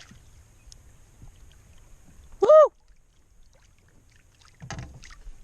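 A man's single loud "Woo!" of excitement about two seconds in. Near the end come a few faint rustling knocks.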